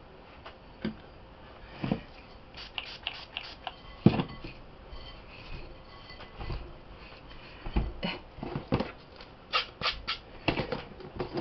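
Hands mixing and rubbing purple bath fizzy powder in a plastic bowl: irregular scratching and rustling with light knocks, the sharpest about four seconds in and a quick cluster near the end as a plastic container is handled.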